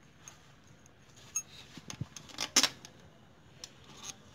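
Small metal engine parts and tools handled by hand on a workbench: a handful of sharp metallic clicks and clinks, the loudest cluster about two and a half seconds in.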